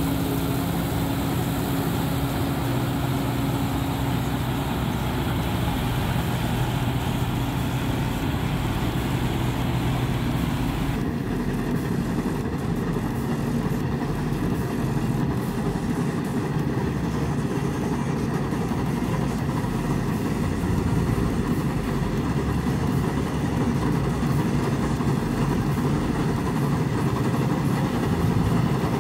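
Claas Crop Tiger 40 tracked combine harvester running steadily under load while cutting rice: a continuous engine hum with a hiss above it. About eleven seconds in the sound changes abruptly, the higher hiss falling away, and it grows a little louder toward the end as the machine comes closer.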